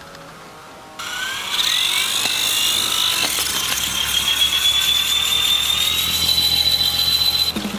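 Electric RC helicopter's motor and rotor gears spinning up about a second in: a whine that rises quickly in pitch, then holds high and fairly steady while still creeping upward, before cutting off suddenly near the end.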